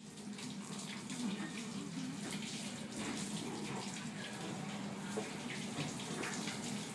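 Water tap running steadily into a metal trough sink, a continuous rush of water.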